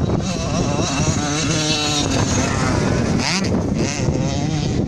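KTM 65 two-stroke motocross bike engine revving up and down as it is ridden through the sand, its pitch rising and falling through the gears.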